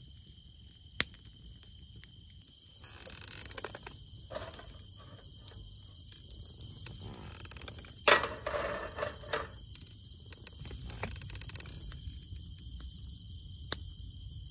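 Insects buzzing steadily in the background, with a few sharp clicks and two short spells of rattling and rustling, like camp gear being handled. The loudest click comes about eight seconds in.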